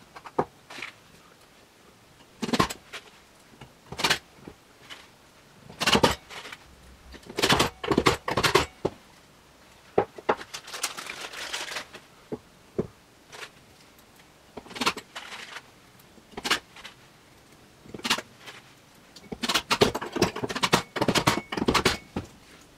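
Metal folding-leg brackets being handled on a plywood workbench: irregular clicks, clinks and knocks, with plastic packaging rustling. The sounds come in clusters and are busiest near the end.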